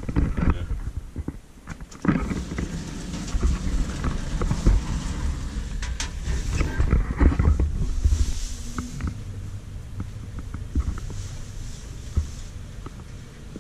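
Elevator doors sliding shut, then a 1974 ValmetSchlieren traction elevator starting about two seconds in and travelling upward, with a steady low rumble and scattered clicks.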